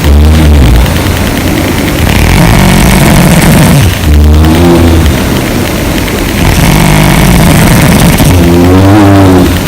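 A sleeping woman snoring loudly: three long, low snores about four seconds apart, with softer noisy breathing between.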